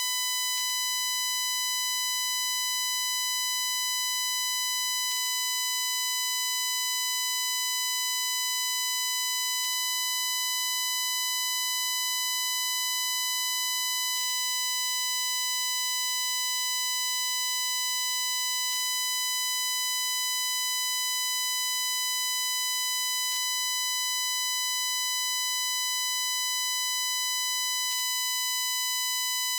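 Shrill, high-pitched buzz from a recording glitch in a Shure MV88+ phone microphone: one unchanging tone near 1 kHz with a dense stack of overtones, and a faint tick about every four and a half seconds.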